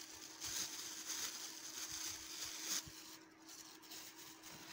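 Thin clear plastic wrapping rustling and crinkling as it is pulled off a makeup sponge by hand, busiest for the first three seconds and then tailing off. A faint steady hum runs underneath.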